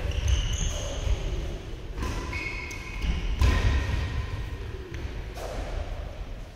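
Badminton rally: sharp racket strikes on the shuttlecock every second or two, with short squeaks of shoes on the synthetic court and the thuds of footwork.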